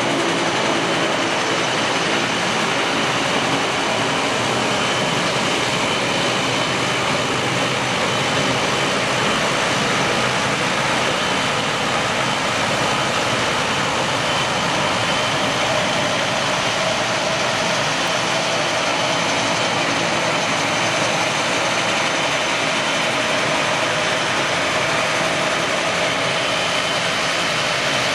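ATR 72-202 turboprop's engines and propellers running steadily at low taxi power: an even rush with a thin high tone held steady through it.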